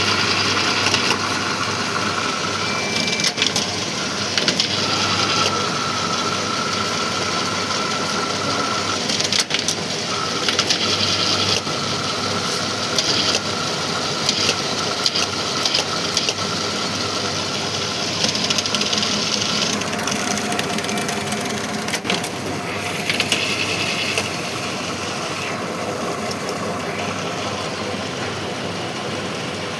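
Semi-automatic strapping machine running: a steady motor hum with a mid-pitched whine that comes and goes, mechanical rattling and scattered sharp clicks.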